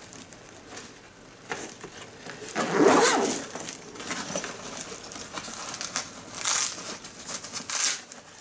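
Rustling and crinkling of a new nylon bowling bag and its plastic wrapping being handled, with a louder rubbing scrape about three seconds in and sharper crinkles near the end.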